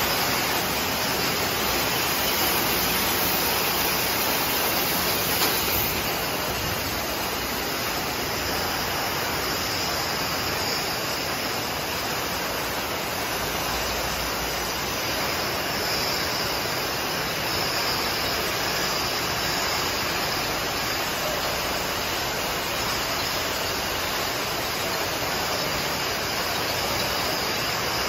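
Glass-bottle soft-drink bottling line running: a steady, dense machine din of conveyors and filling machinery with a constant hiss.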